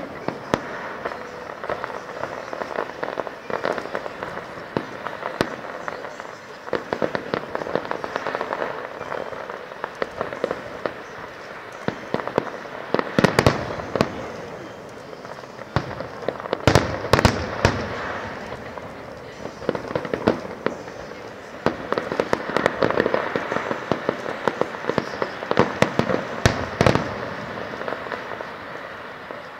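Fireworks display: a continual run of bangs and crackling bursts, with the loudest clusters of reports about halfway through and again a few seconds later.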